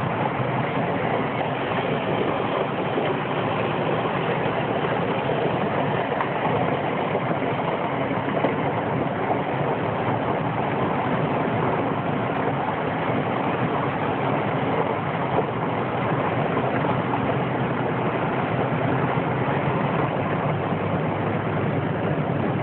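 Land Rover 110 County's engine running steadily as the vehicle drives slowly, heard close up from the top of the bonnet as an even, unchanging noise.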